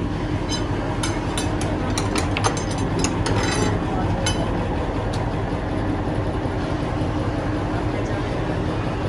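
Steady drone of factory machinery, with a quick run of sharp metallic clinks and knocks from about half a second to four seconds in as a steel brake shoe is handled and seated in a press mould.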